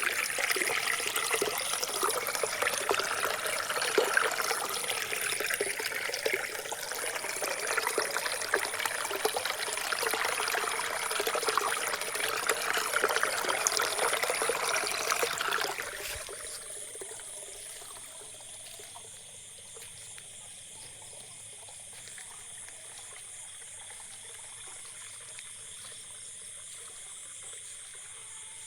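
Water trickling and splashing, a busy patter of small drips, which cuts off abruptly about halfway through. What remains is a quieter steady bed with a faint high, even trill.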